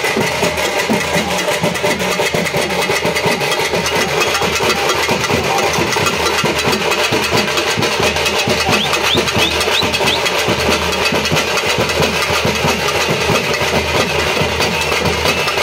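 Drums beaten in a fast, continuous roll, loud and steady, over the noise of a crowd.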